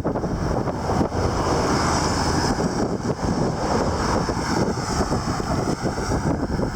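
Wind buffeting the microphone of a camera carried on a moving bicycle: a steady, gusty rush strongest in the low end.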